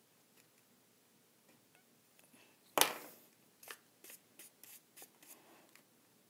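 A small paintbrush brushing melted candle wax onto a folded paper boat: a sharp tap about three seconds in, then a run of short, scratchy brush strokes on the stiff paper.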